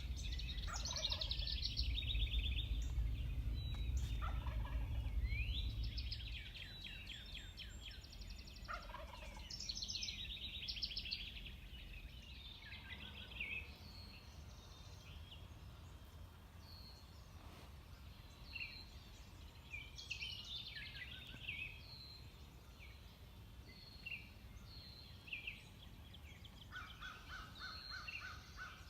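Wild turkey tom gobbling three times in the first ten seconds or so, each a fast descending rattle, with songbirds chirping throughout. A low rumble sits under the first six seconds, and a short, evenly spaced run of notes comes near the end.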